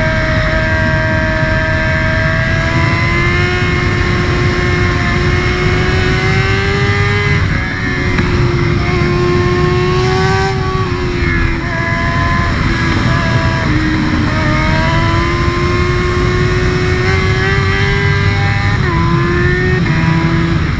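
Honda CBR600F's inline-four engine and exhaust running under load, the pitch climbing slowly and dropping briefly about five times as the bike shifts gear.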